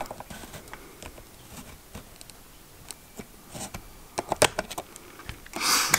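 Small sharp clicks and scrapes of a screwdriver tip working the metal rear lens retaining ring of a Voigtländer Bessa I folding camera, scattered and faint, with a louder run of clicks about four and a half seconds in. A short rustling hiss near the end.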